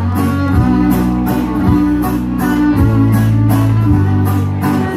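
Live folk band playing: fiddle and strummed acoustic guitar over a deep bass line, with a steady beat.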